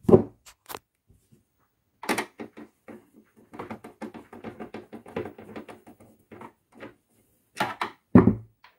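Screwdriver backing a screw out of a printer's plastic housing: a run of quick small clicks and scrapes, with a few louder knocks near the end.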